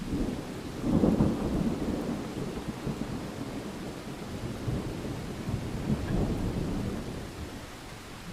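Thunder rumbling over steady rain: the rumble breaks in suddenly, is loudest about a second in, swells again near six seconds, then fades back to the rain.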